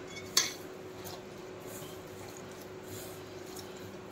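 A hand mixing ragi flour and water into dough in a stainless steel bowl, with one sharp clink against the steel about half a second in and faint, scattered contact sounds after it, over a faint steady hum.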